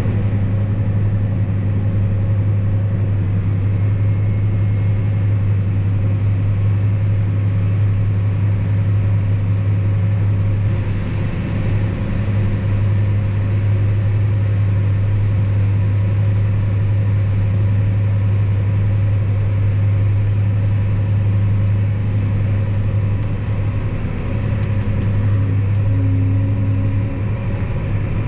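Vehicle engine running at a steady speed: a deep, even drone that holds unchanged throughout.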